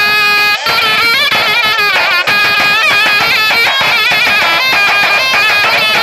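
Davul bass drum and a zurna playing a folk dance tune. The zurna holds one long note, stops briefly about half a second in, then runs into a quick, ornamented melody over the drum beats.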